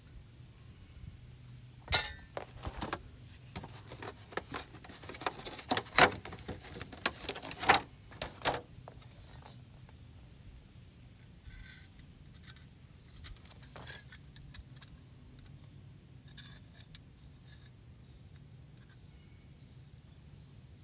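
A run of sharp metallic clinks and clanks, loudest in the first half, then a few faint clicks, as pieces of scrap metal are handled. A faint low hum runs underneath.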